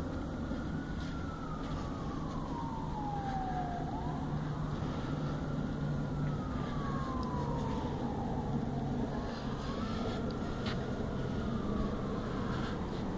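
Emergency vehicle siren on a slow wail, its pitch rising quickly and then falling slowly about every four to five seconds, over a steady low rumble of traffic.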